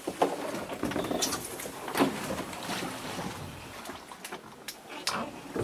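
Canoe being hauled over a jam of piled dead logs: irregular knocks and scrapes of the hull against the wood, with a few sharper knocks near the middle and end.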